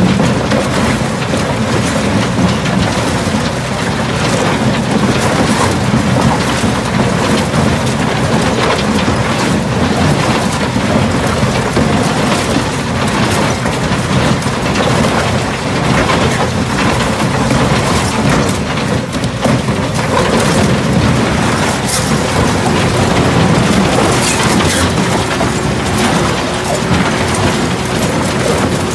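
Arjes Impaktor 250 shaft crusher running and breaking chunks of concrete between its toothed shafts: a loud, continuous crunching and cracking with many sharp knocks over a steady machine hum.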